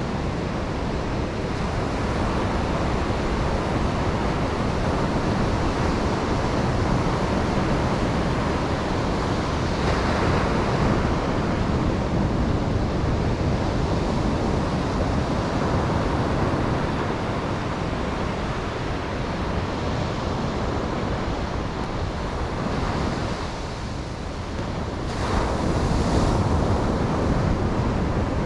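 Ocean waves breaking and washing on a beach: a continuous rushing surf with slow swells, one brighter surge about ten seconds in and another near the end after a brief lull. Some wind noise on the microphone.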